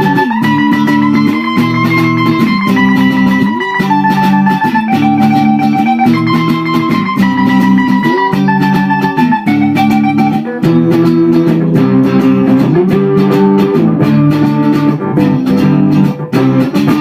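Rock song played on guitars: chords change about once a second over a dense, steady pulse of strokes, and the music stops abruptly at the very end.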